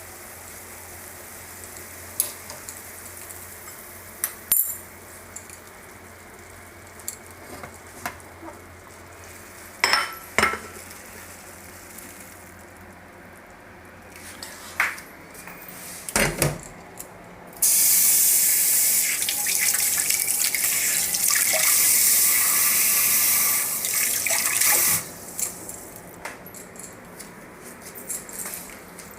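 Kitchen tap running for about seven seconds in the second half, between scattered clinks of utensils and dishes over a steady low hum.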